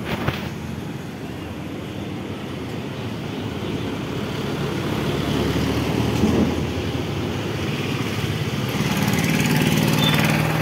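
Mahindra Yuvo 585 DI tractor's diesel engine running steadily with an even chugging, growing louder over the last few seconds.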